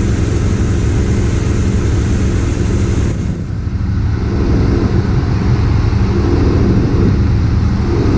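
A twin-engine boat's inboard 350 V8 engines running steadily under way, with a loud low drone. A hiss from water and wind on top falls away about three seconds in.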